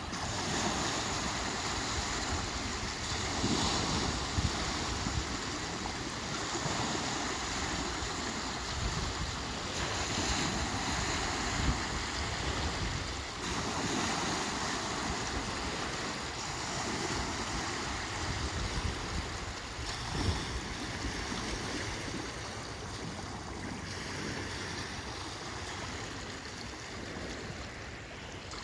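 Small lake waves breaking and washing over a shallow shoreline, the wash swelling and easing every few seconds.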